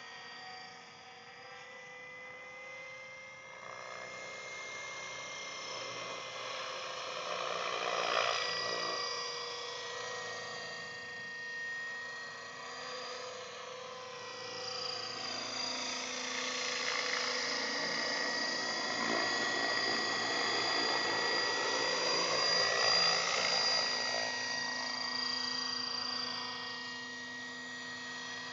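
Align T-Rex 600 radio-controlled helicopter flying, with a steady high whine from its drive and the noise of its rotor blades. It swells briefly about eight seconds in and grows louder again for much of the second half, its pitch sliding as it passes close.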